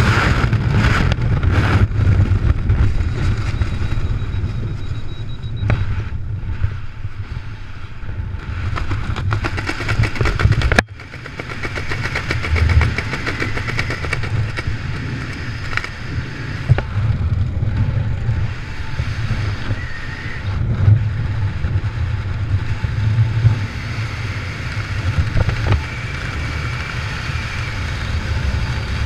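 Wind buffeting a skydiver's helmet-camera microphone during the descent: a steady low rumble that swells and eases in gusts, dropping away sharply for a moment about eleven seconds in.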